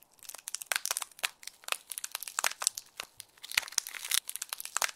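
Ice-cracking sound effect: a dense, irregular run of sharp crackles and crunches, like ice freezing over.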